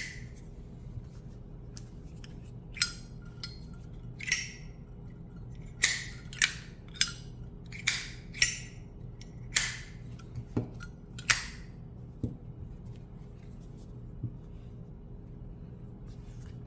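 Solid titanium Zippo lighter's lid being flicked open and snapped shut over and over: about a dozen sharp metallic clicks, some with a brief ring. They come from about three seconds in to past eleven seconds, with a couple of fainter ones after.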